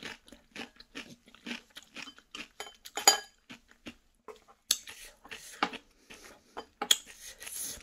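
Close-up crunching and chewing of a raw habanero pepper, mixed with light clicks of chopsticks and a spoon against bowls. One sharper click comes about three seconds in, and there is scraping in a small bowl in the second half.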